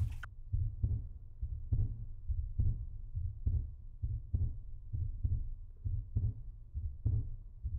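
Heartbeat sound effect: low, muffled double thumps repeating steadily, a little faster than once a second.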